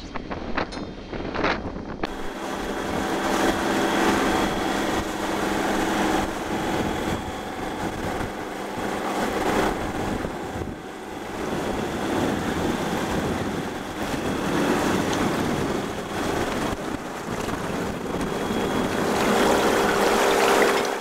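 Sailing yacht under motor: the engine's steady drone under wind buffeting the microphone and water rushing past the hull. A few knocks in the first couple of seconds.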